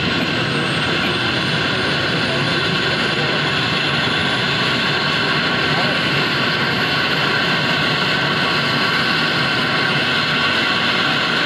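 Light turbine helicopter running on the ground with its main rotor turning: a steady, loud turbine noise with a high whine that climbs slowly in pitch, as the engines spool up.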